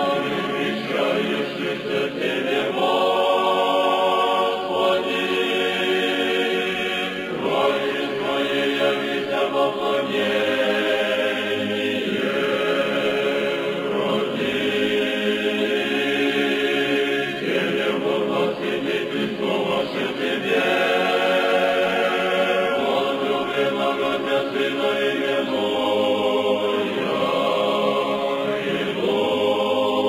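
Background music: a choir chanting in long held notes that shift every few seconds.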